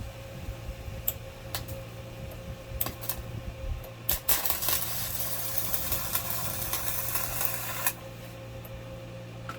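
Hyundai HG200 welder striking and holding an arc: a steady hiss lasting about four seconds that starts about four seconds in and cuts off suddenly. A few sharp clicks come before it, and a steady machine hum runs underneath.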